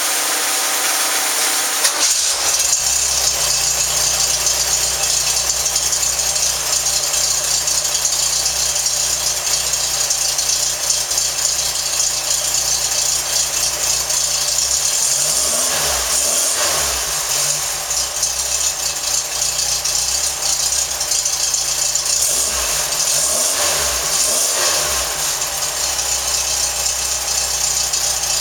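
1914cc air-cooled Volkswagen flat-four buggy engine running on a test stand with a rattly idle, revved up and back down twice partway through.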